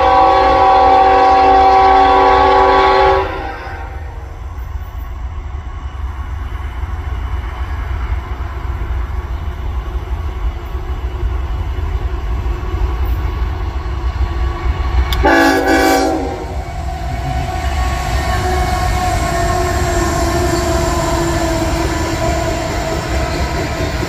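Diesel freight locomotive's multi-note air horn sounding a long blast that cuts off about three seconds in, then one short blast about fifteen seconds in, which the railfan takes as a warning to trespassers on the track. Between and after the blasts, the lead locomotives run past with a steady rumble, followed by the rolling of loaded tank cars.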